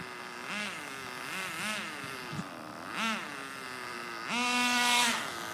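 Small nitro engine of an RC car idling and being revved in three short blips, then held at a higher rev for about a second near the end before dropping back to idle.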